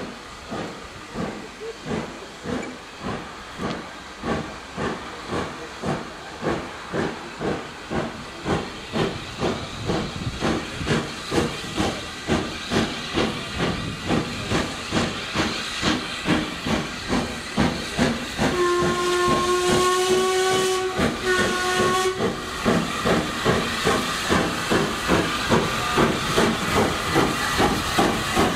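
Saddle-tank steam locomotive No. 15 working towards the station, its exhaust beating evenly at about two a second and growing louder as it approaches. About two-thirds of the way through, its steam whistle gives one long blast and then a short one.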